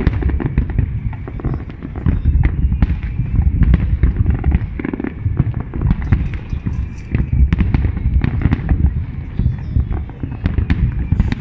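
New Year fireworks barrage: many shells bursting at once, a continuous low rumble of booms with many sharp pops throughout.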